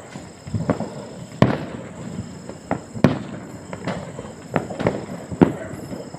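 Distant firecrackers going off in an irregular string of sharp bangs, with a few louder reports among many fainter pops.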